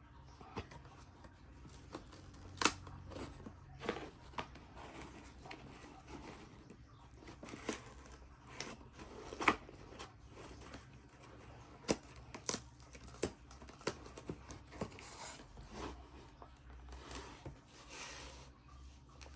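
Packaging being opened by hand: scattered sharp snips and clicks, with tearing and rustling of paper and cardboard between them.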